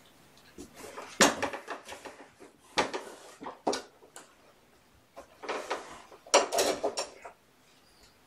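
Hard plastic knocks and clatters as a white plastic weighing tray is lifted, handled and set down: single knocks a second or two apart, then a busier run of clattering about two-thirds of the way through.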